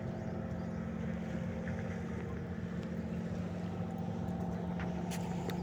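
Steady low hum of a boat engine running, holding one even pitch throughout.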